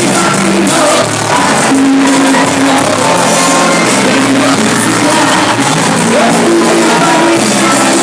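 A live cumbia band playing with a singer. The crowd shouts along in a large hall.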